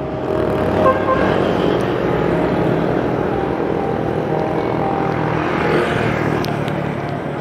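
Steady street traffic noise, with motor vehicle engines running.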